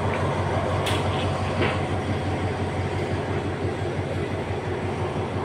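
Diesel-hauled passenger train carriages rolling slowly on the track, with a steady low rumble. A short sharp metallic click comes about a second in and a weaker one shortly after.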